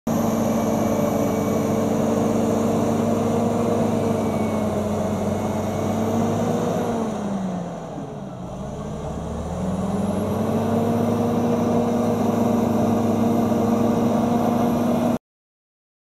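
Caterpillar D7R bulldozer's diesel engine running steadily. About seven seconds in its pitch drops and it goes quieter, then it climbs back to the same speed about two seconds later. The sound cuts off suddenly near the end.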